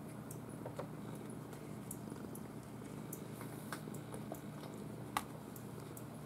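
Kittens wrestling on a wooden floor against a carpeted cat tree: scattered small ticks and scuffs of paws and claws, with one sharper click about five seconds in, over a steady low hum.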